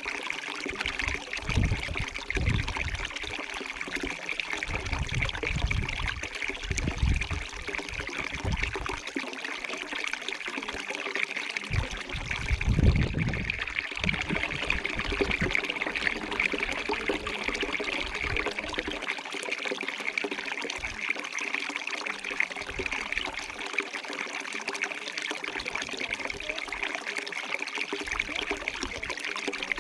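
Water trickling and running steadily in a small stream, with irregular low rumbles now and then, the strongest a little before the middle.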